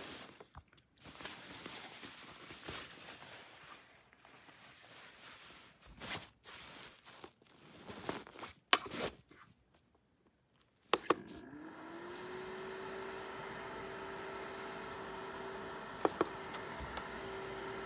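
Irregular clicking and rustling, then a beep and the portable clothes dryer's fan motor starting up, its pitch rising quickly and settling into a steady hum. Another short beep comes a few seconds later.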